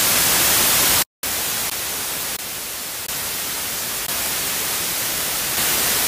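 K6 white noise machine playing a steady white-noise hiss. It cuts out for a moment about a second in, then resumes a little quieter and less bright, stepping slightly up and down in level.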